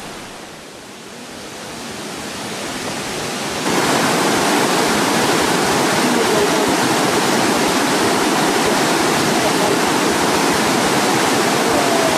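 Rushing river water tumbling over rocks, a steady loud roar that builds and then jumps to full loudness about four seconds in.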